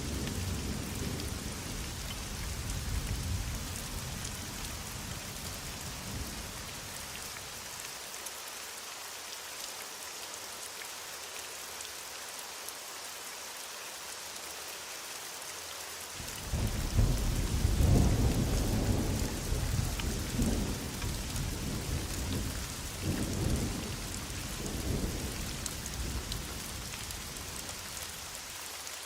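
Steady heavy rain with distant thunder: a low rumble in the first few seconds, then a louder roll of thunder starting about halfway through that peaks soon after and rumbles on in several waves before fading.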